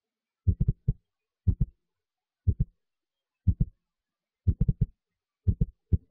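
Deep, heartbeat-like thumping beat: a cluster of two or three low thumps about once a second, with silence between. Near the end the thumps come faster and closer together.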